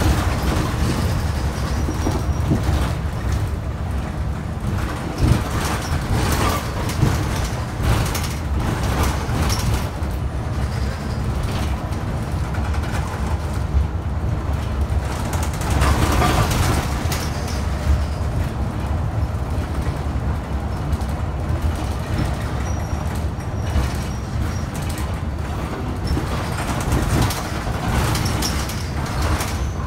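New Flyer Xcelsior XD60 articulated diesel bus on the move: a steady low engine and road rumble, with occasional knocks and rattles.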